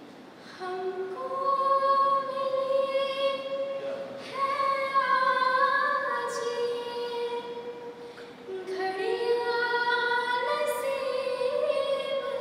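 A teenage girl singing solo with no accompaniment, holding long, drawn-out notes in three phrases.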